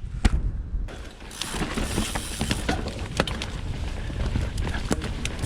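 Full-suspension mountain bike being ridden on a dirt trail: a steady rush of tyre and wind noise with many sharp, irregular clicks and rattles from the bike's chain and drivetrain. A single click comes just before the riding noise starts, about a second in.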